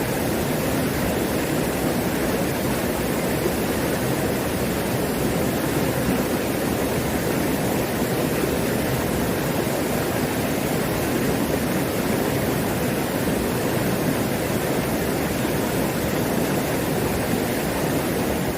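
Mountain stream rushing steadily over rocks, running full with plenty of water.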